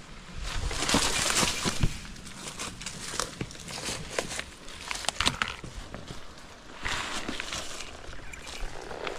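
Branches and twigs rustling, crackling and snapping, with crunching footsteps, as a person pushes and climbs through a tangle of fallen trees. The loudest rustling comes about a second in, and sharp snaps follow here and there.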